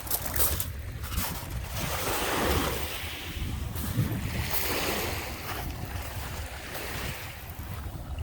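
Lake Michigan waves washing onto the beach, the rush swelling twice, about two and a half and five seconds in. Wind buffets the microphone with a low rumble throughout.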